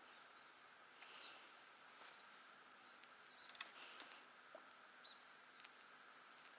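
Near silence: faint outdoor ambience with a few soft, high bird chirps and a couple of small clicks a little past halfway.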